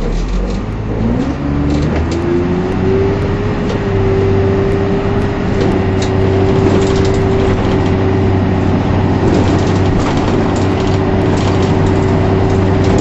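Dennis Dart single-deck bus pulling away, heard from the driver's cab: the engine drone picks up and a driveline whine rises in pitch over the first few seconds, then holds steady as the bus cruises.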